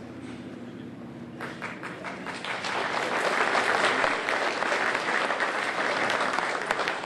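Audience applauding, starting about a second and a half in, swelling and then easing off near the end.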